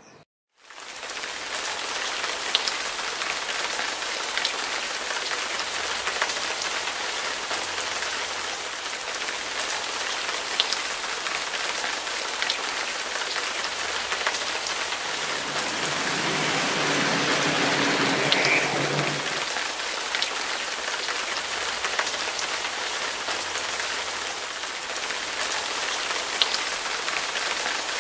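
Steady rain falling on surfaces, with scattered drop taps. A low rumble swells briefly in the middle and fades.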